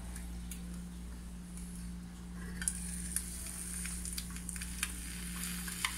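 An egg frying in butter in a nonstick frying pan, sizzling, over a steady low hum. The sizzle grows louder about halfway through, with sharp crackling pops.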